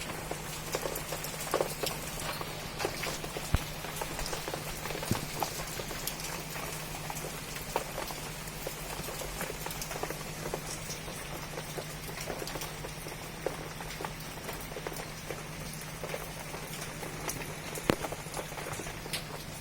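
Steady rainfall, with individual drops landing as irregular sharp ticks over an even patter, and a steady low hum underneath.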